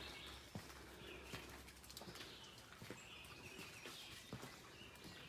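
Faint woodland ambience: birds calling in the distance, with a few soft taps like footsteps on a trail.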